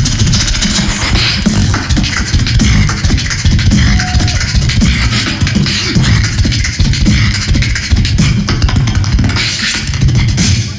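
Human beatboxing through a microphone and stage PA: very fast vocal percussion, with heavy bass kicks under a dense run of rapid snares and clicks.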